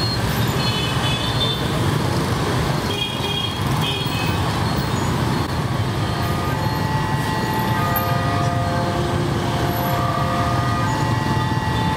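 Dense city street traffic, mostly motor scooters and motorbikes: a steady mix of engine hum and road noise, with horns beeping now and then.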